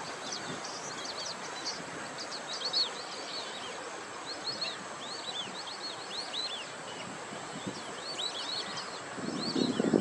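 Many short, high chirps repeated over and over from small birds, over a steady outdoor background hiss. Near the end a louder low noise comes up.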